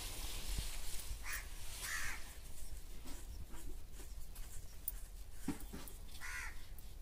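A crow cawing three times, about a second in, at two seconds and near the end, over faint rustling as flowers are picked into a plastic bag.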